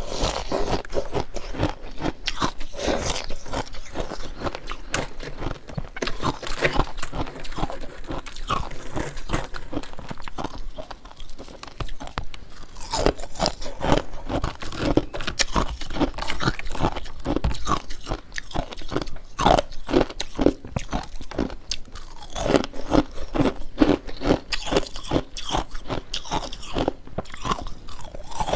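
A person biting and chewing ice, with a dense run of crisp, irregular crunches.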